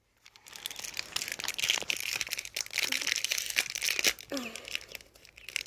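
Plastic toy packaging crinkling and tearing as it is unwrapped by hand, a dense crackle that starts about half a second in.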